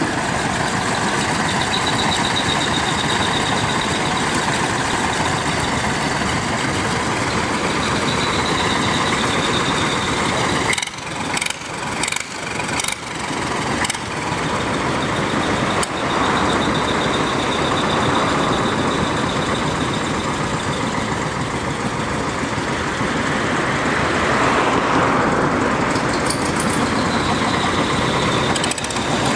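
Vintage tractor engine running steadily, with a few brief drops in loudness a little before halfway.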